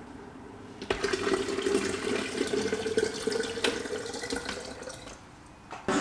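Water pouring from the small tap of an electric tea maker into a container. It starts suddenly about a second in, runs steadily for about four seconds, then tails off shortly before the end.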